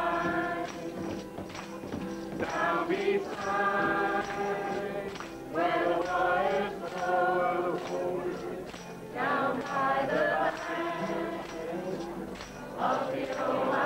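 A group of voices singing a folk song together in phrases a few seconds long, with an acoustic guitar strummed in a steady rhythm.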